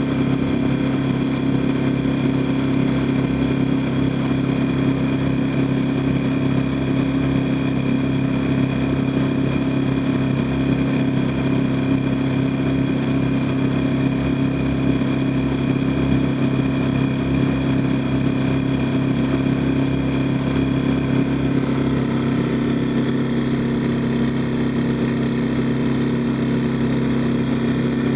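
Small boat's engine running steadily at an even speed, its tone shifting slightly about 22 seconds in.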